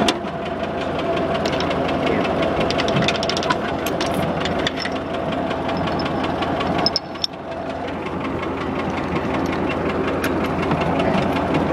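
Farmall H tractor's four-cylinder engine running steadily as the tractor moves, with a fine regular ticking of its firing. The sound dips briefly about seven seconds in.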